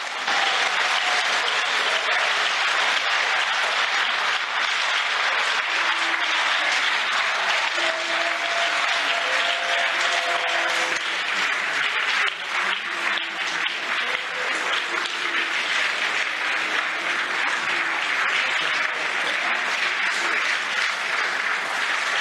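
Dense, steady applause from a large parliamentary chamber full of people clapping, greeting the announcement that a vote has passed.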